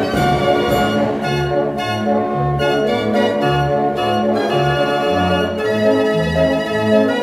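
Dutch street organ (draaiorgel) playing a tune: sustained melody notes over a bass line that beats about twice a second.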